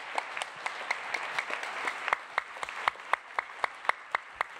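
Audience applauding, dense at first, then thinning after about two seconds to separate claps at an even pace.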